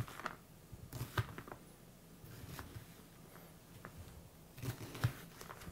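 Kitchen knife slicing and dicing an onion on a thin plastic cutting board: quiet, irregular crisp cuts with light taps of the blade on the board, a handful of strokes with a small cluster near the end.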